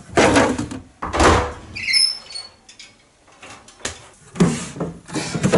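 Wooden pine drawers and a wooden wardrobe door being pulled open and pushed shut in a hurried search for clothes: several quick scraping slides and knocks of wood on wood, with a brief squeak about two seconds in.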